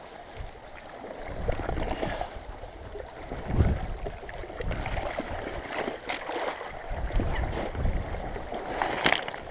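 Shallow river water sloshing and gurgling around a wet plastic sheet holding a wels catfish, with the sheet rustling and crackling in irregular swells, sharpest near the end.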